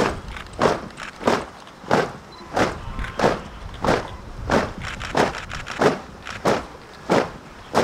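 Boots of a column of marching soldiers striking the ground in unison on a parade field, a regular beat of about one and a half steps a second.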